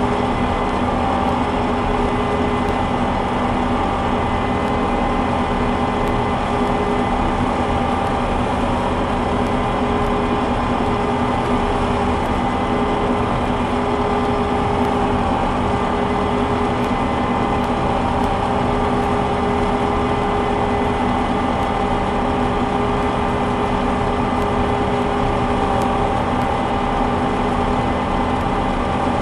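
Combine harvester running steadily while cutting soybeans: an even engine rumble with steady whining tones from the machine's drives, unchanged throughout.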